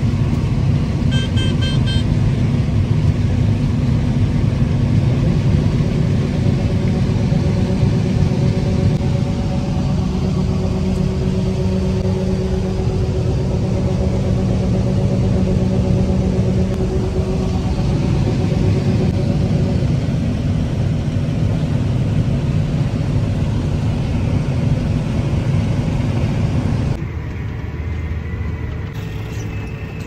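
John Deere combine running while harvesting corn and unloading into a grain cart: a loud, steady machinery rumble with engine hum. A brief rapid beeping sounds about a second in. Near the end it drops to the quieter steady hum of a tractor cab.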